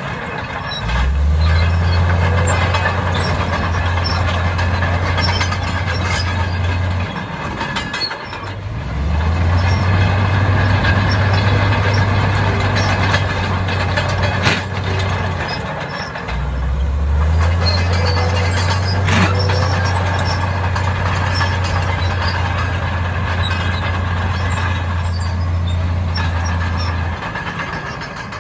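Heavy diesel earthmoving machine working. Its deep engine note comes up hard in three long stretches of about six to ten seconds each, dropping briefly between them, over a constant grinding, clattering noise with scattered knocks.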